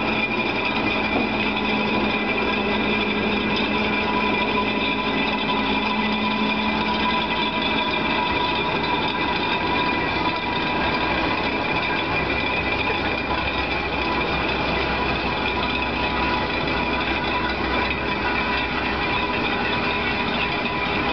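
Railway turntable turning with the EF81 electric locomotive on it: a steady machine hum with constant high whining tones. A low tone in the hum drops out about seven seconds in.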